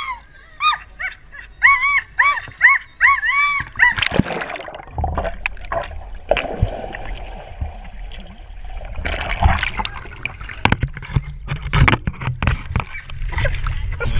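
Black Labrador whining eagerly, a quick run of short high whines that each rise and fall in pitch, for about four seconds. Then a splash as she jumps into the pool, followed by muffled underwater churning, bubbling and splashing heard through a submerged GoPro camera.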